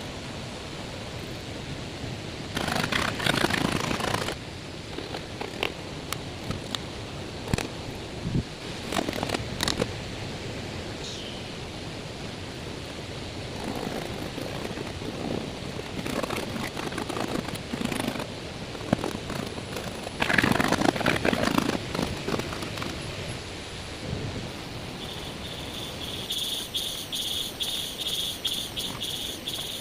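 Irregular bursts of rustling and scraping, with a few sharp clicks, as forest materials are handled. An insect, likely a cricket, starts chirping in a rapid high pulsed trill near the end.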